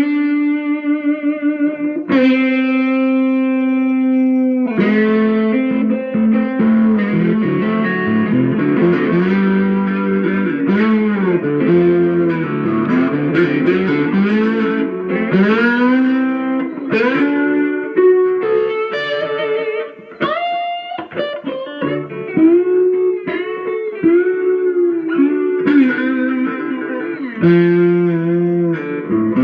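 Electric guitar played with a bottle slide: held notes with wavering vibrato at first, then phrases that glide up and down in pitch between notes.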